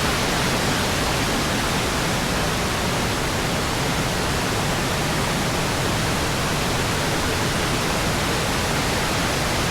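Steady rushing of a large waterfall, Burgess Falls, heard close by from the cliff top.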